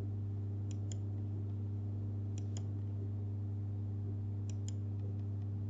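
Computer mouse clicking: three pairs of quick clicks about two seconds apart, over a steady low hum.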